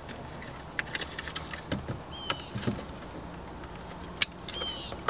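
Light plastic clicks and rattles as the driver door switch panel and its wiring connector are handled and plugged in, with one sharper click about four seconds in.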